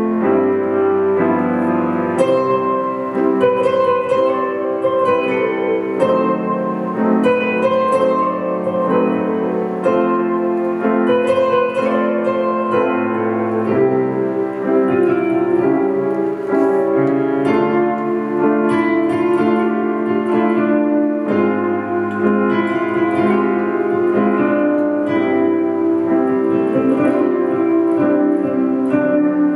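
Grand piano and acoustic guitar playing together, a continuous instrumental duet with the piano most prominent.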